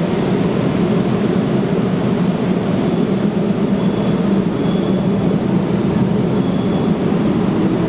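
A train running through the station: a steady, loud rumble of wheels and running gear, with faint high-pitched wheel squeals about two seconds in and a few more times later.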